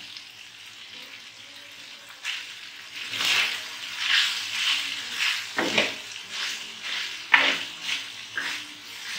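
Steel ladle stirring shredded cabbage, capsicum and chicken in a frying pan, with the mix sizzling. It is a low steady sizzle at first; from about three seconds in come scraping, rustling stirring strokes about two a second, with one sharp knock near seven and a half seconds.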